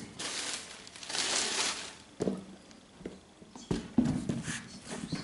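Cardboard shoe box being handled: a sliding, rubbing noise about a second in, then a few light knocks as it is moved and set down.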